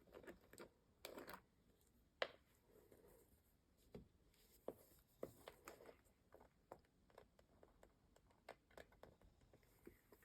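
Near silence with faint, scattered clicks and taps of small craft items being handled, the sharpest about two seconds in.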